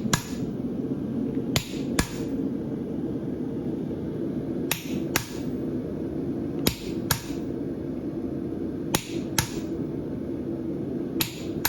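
A hammer striking a farrier's creaser to crease the branch of a hot steel horseshoe. The ringing blows come in pairs about half a second apart, a pair every two seconds or so, over a steady low drone.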